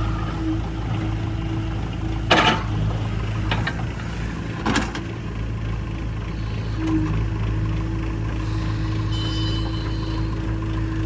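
Backhoe loader's diesel engine running steadily, with two sharp knocks about two and five seconds in.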